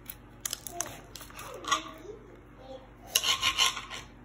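A stiff paper recipe card being handled and unfolded, with rubbing, rustling strokes. The loudest cluster comes about three seconds in.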